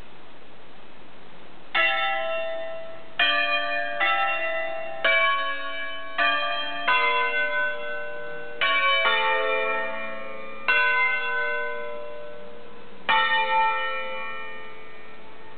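Ambrosian-system church bells cast by Roberto Mazzola in 1952, a five-bell ring tuned A, B, C-sharp, D and E, electrically swung and rung a concerto. From about two seconds in there are about ten strokes at an uneven pace, making a changing melodic sequence, and each note rings on under the next. The last stroke near the end is left to ring away.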